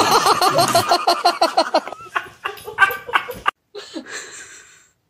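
A person laughing hard in a fast run of short pulses that fades after about two seconds, followed by softer laughter and voices.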